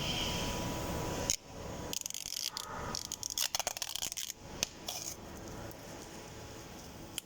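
Hand tools working on metal during a winch shaft-bearing replacement: scraping and rubbing, then bursts of quick sharp clicks in the middle, fading to a low steady background.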